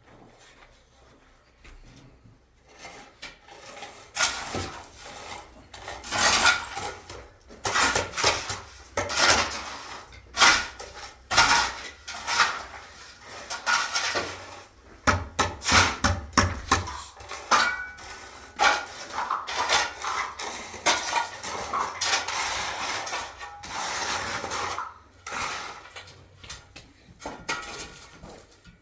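Irregular clattering of hard objects: a run of knocks and clinks mixed with stretches of scraping, sparse at first and busier from a few seconds in.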